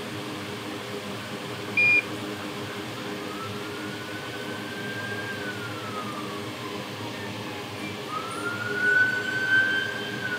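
A siren wailing in two slow rises and falls, the second louder near the end, over the steady hiss of a hot air rework station's blower. A short high beep sounds about two seconds in.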